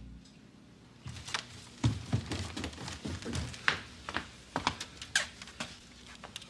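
Quick footsteps across a floor, low thumps about three a second, mixed with scattered light clicks and knocks.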